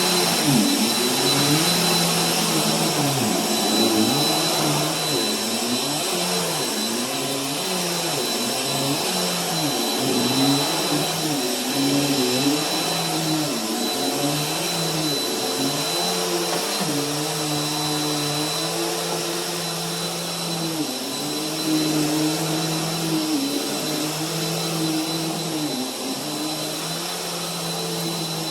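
Bissell bagless vacuum cleaner running on carpet. Its motor hum wavers down and up in pitch every second or two, over a steady high whine.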